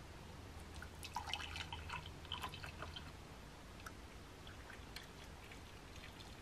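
Hot almond-milk hot chocolate poured from a small saucepan into a ceramic mug, a faint trickle of liquid. Light clinks and knocks from the pan being handled come between about one and three seconds in.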